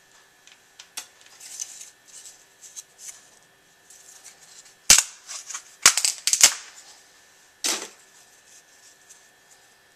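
Hard plastic parts of a 3D print cracking and snapping as they are worked by hand. There is one sharp snap about five seconds in, a quick cluster of loud cracks a second later, and one more near eight seconds, with light clicking and rubbing in between.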